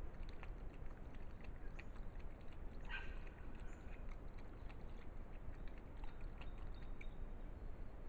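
A wild dog lapping water from a muddy wallow: faint, irregular wet ticks and slurps, a cluster of them about three seconds in, over a low steady rumble.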